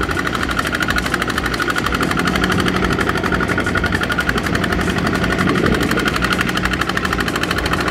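Kubota ZT120 single-cylinder diesel engine of a two-wheel walking tractor running hard under load, with a rapid, even chugging, as the tractor drags a loaded trailer through deep mud.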